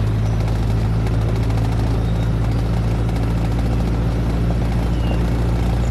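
Military truck engines running in a steady, loud low drone as a convoy drives past.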